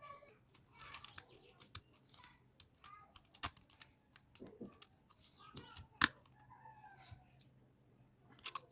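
Small metal parts clicking and clinking as a bolt, nut and washer are handled and clamped in steel pliers: irregular light clicks and taps, with two sharper clicks a few seconds apart.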